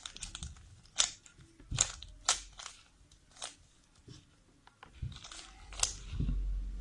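Plastic 3×3 Rubik's cube being twisted to scramble it: irregular sharp clicks and rattles as its layers turn, with a low handling rumble near the end.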